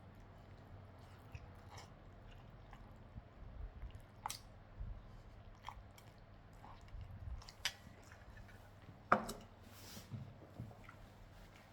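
A person chewing a big mouthful of pad see ew (stir-fried wide rice noodles), with soft wet mouth clicks and smacks scattered through; one sharper click a little past nine seconds in is the loudest.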